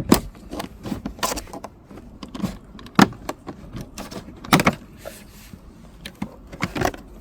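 Plastic interior trim panel in a car being pried and pulled open by hand: a series of sharp clicks and knocks from the panel and its clips, the loudest about three seconds in and again a second and a half later.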